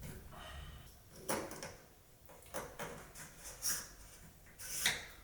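Light handling knocks and rustles from shower fixture parts and their packaging being picked up and set down. There are four or five separate short clatters, the loudest shortly before the end.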